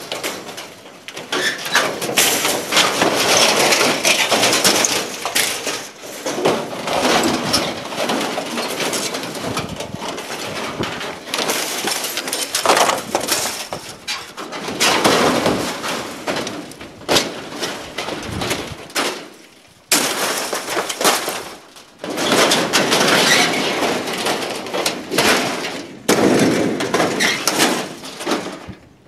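Thin aluminium sheets of old caravan cladding being dragged off a trailer and dropped onto the ground, rattling, buckling and clattering in repeated bouts with short pauses between.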